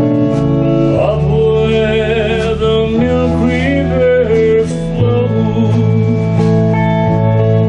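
Live country band playing: electric bass, electric guitar and drums, with a wavering lead melody line over a steady bass.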